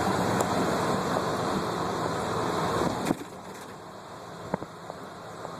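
Road and wind noise inside a moving car, steady and fairly loud until about three seconds in, when it drops off suddenly after a knock, leaving a quieter steady hum with a few small clicks.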